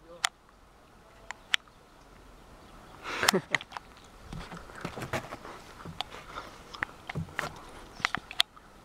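Airsoft guns firing: scattered sharp pops and clicks at irregular intervals, with the busiest cluster about three seconds in.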